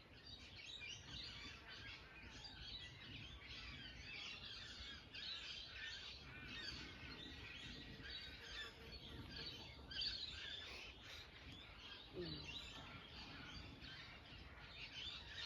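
Faint dawn chorus of many birds chirping and singing together over a low background rumble.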